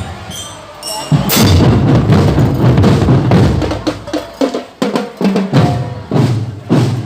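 Marching percussion playing loudly: deep bass drums and snare drums beating a busy, driving rhythm with rolls.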